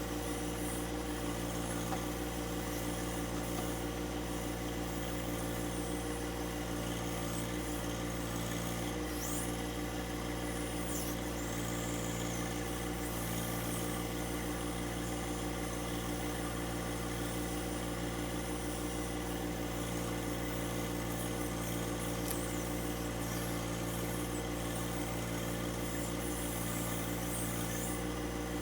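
Compact tractor's three-cylinder diesel engine running at a steady speed, with no change in load or revs.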